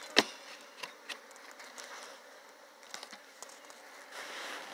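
Honeybees buzzing around an open hive, the buzz swelling near the end. A few sharp knocks and clicks of a hive tool on the wooden hive parts, the loudest just after the start.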